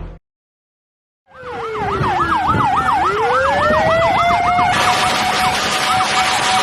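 Emergency vehicle sirens start about a second in, after a brief silence. One is a fast yelp, wavering up and down a few times a second. The other is a slower wail that dips, then climbs to a held high note. Past the middle a louder rushing noise comes in and the yelp fades behind it.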